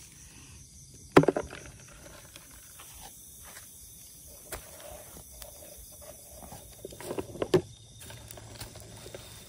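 Dry rice straw and stubble crunching and rustling. There is a sharp crunch about a second in and a cluster of crackles around seven seconds in.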